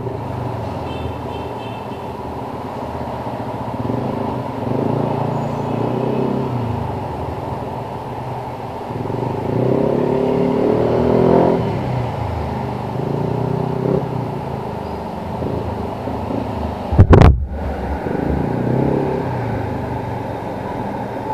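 Yamaha NMAX 155 scooter's single-cylinder engine, breathing through an Akrapovič full exhaust, running under way, its pitch rising and falling with the throttle and swelling about halfway through. A sudden loud low rumble comes about three-quarters of the way in.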